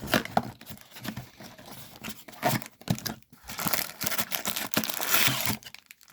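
Packaging of a retail box of trading cards being torn open and crinkled: irregular rustling and tearing, with the densest tearing from about the middle to near the end.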